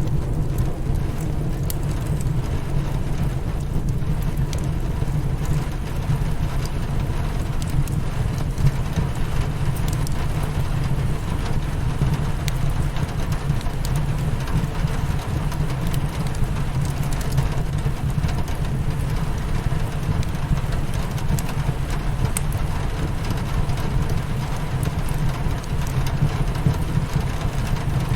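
Steady rain on a window pane mixed with a crackling fire, over a steady low rumble, with faint scattered crackles.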